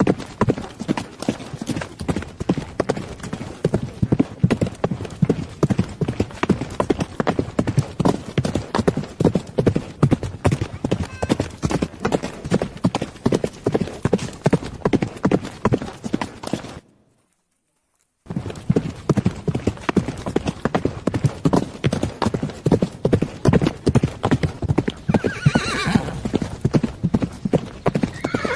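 Horse's hooves clip-clopping in a quick, steady run of beats that stops dead for about a second and a half, some 17 seconds in, then goes on.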